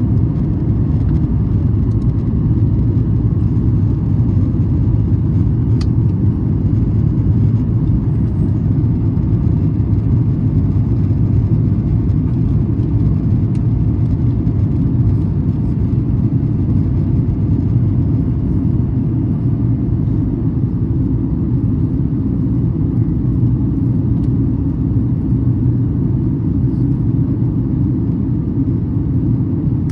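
Steady low roar inside the cabin of a Boeing 737 MAX 8 in flight: the drone of its CFM LEAP-1B turbofan engines mixed with airflow over the fuselage.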